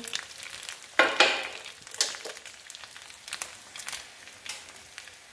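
Egg frying in oil in a nonstick pan, a steady sizzle with scattered pops and crackles that eases slightly toward the end. A couple of sharp knocks about a second in, with another at about two seconds, as a ceramic plate is set down next to the stove.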